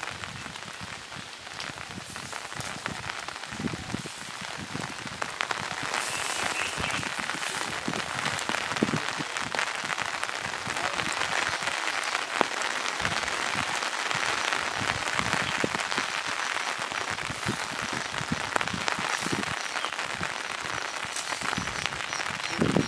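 Light rain falling, a dense patter of many small drops that grows louder about six seconds in.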